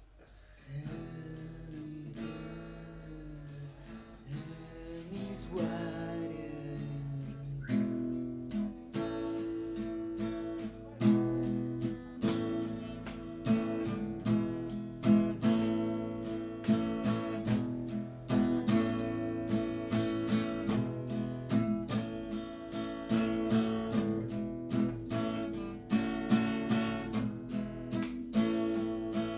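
Acoustic guitar playing: soft, slower notes at first, then strummed chords with sharp, regular strokes from about eight seconds in.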